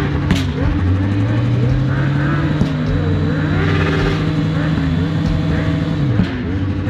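Yamaha sport motorcycle engine revved up and held at a steady high rpm for several seconds, then dropping back about six seconds in.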